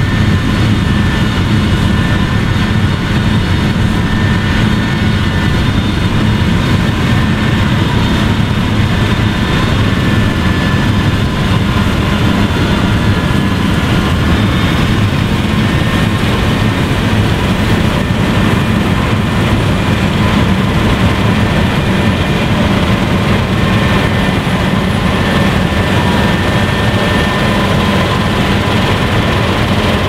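Claas Lexion 8800 combine harvester running steadily under load while cutting wheat and unloading grain, with the tractor pulling the grain trailer alongside. An even, unchanging mechanical drone with several steady tones.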